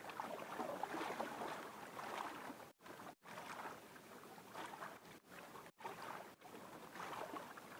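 Small waves lapping and splashing softly against the hull of a small outrigger boat drifting on the sea. The sound swells and fades unevenly and cuts out briefly a few times.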